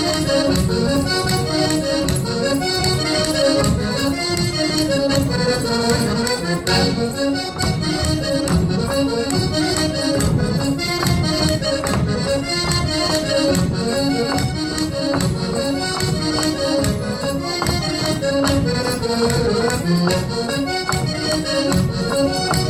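Portuguese folk dance music: an accordion playing a lively dance tune over a steady percussion beat.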